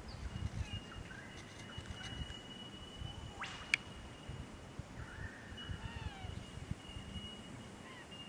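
Birds calling: short calls that glide up and down in pitch, over a steady high-pitched whine and low wind rumble on the microphone. A single sharp click comes about three and a half seconds in.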